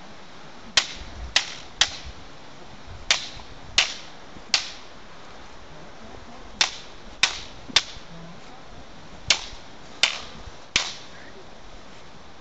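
Wooden staffs clacking together in sparring: four quick bursts of three sharp knocks each, about two and a half seconds apart.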